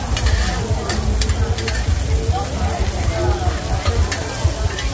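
Food sizzling in hot oil at a street food stall, with scattered sharp clicks over a steady low rumble.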